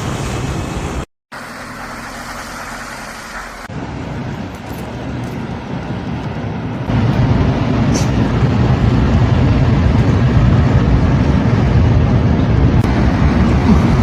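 Vehicle and street traffic noise, a steady low rumble and hiss across several short cut-together clips, broken by a brief dropout about a second in and growing louder about seven seconds in.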